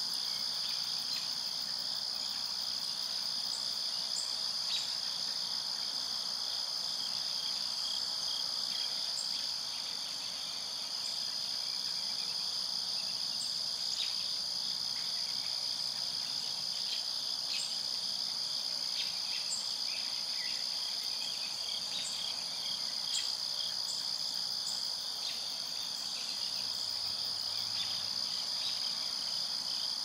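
Steady, high-pitched insect chorus trilling without a break, with faint short ticks scattered through it.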